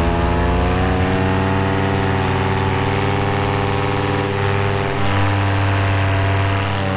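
Polini Thor 202 single-cylinder two-stroke paramotor engine running steadily at cruise throttle in flight, its pitch rising slightly in the first second. About five seconds in it turns a little louder and breathier for a second or so.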